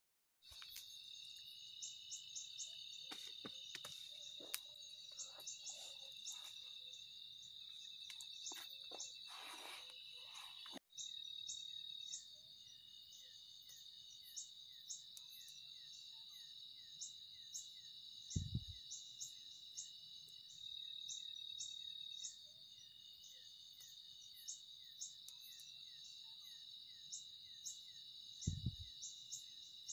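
Night chorus of crickets and other insects: a steady high buzz with rows of short, evenly repeated chirps over it. Two brief low thumps come about two thirds of the way in and near the end.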